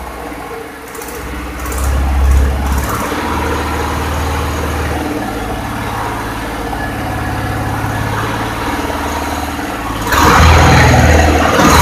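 Small single-cylinder stationary diesel engine coupled to a water pump, running steadily; about ten seconds in it gets markedly louder.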